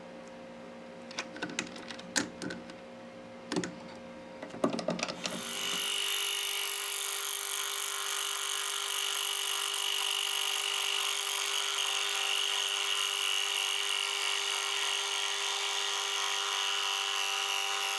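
Metal lathe facing the end of a tape-wrapped aluminium channel, running as a steady whine with a strong high tone from about five seconds in. Before that, a few clicks and knocks as the workpiece is handled in the chuck.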